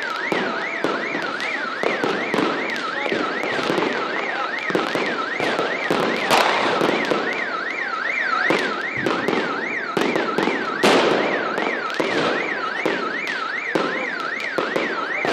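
Fireworks banging and crackling overhead, with the two loudest bursts about six and a half and eleven seconds in. Behind them an electronic alarm warbles steadily, its tone swinging up and down about two and a half times a second.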